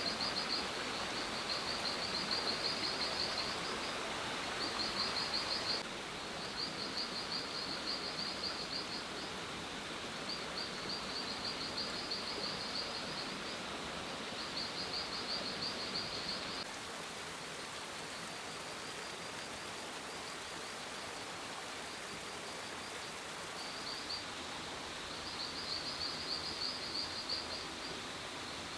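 Outdoor wildlife ambience: repeated high, rapid chirping trills, each a second or two long with short gaps, over a steady hiss. The background drops in level about 6 seconds in and again about 17 seconds in.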